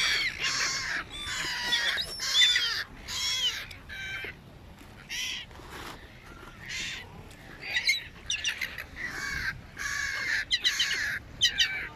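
A flock of gulls calling over one another, many short harsh calls that bend up and down in pitch. The calls thin out for a few seconds in the middle, then crowd together again.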